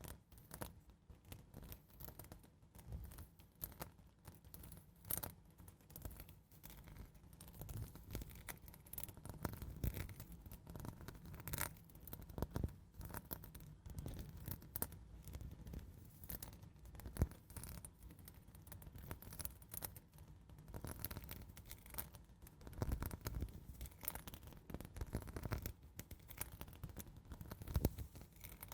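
ASMR scratching: soft, slow scratching strokes close to the microphone, an irregular run of light scrapes and ticks with no set rhythm.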